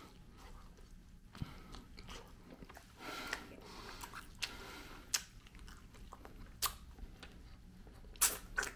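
A person chewing sauce-covered fries close to the microphone: quiet, wet mouth sounds with a few sharp clicks scattered through.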